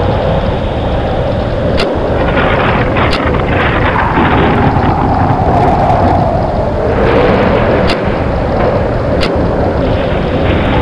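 Storm sound effect: loud, steady wind howling that slowly falls and rises in pitch, with four brief sharp cracks.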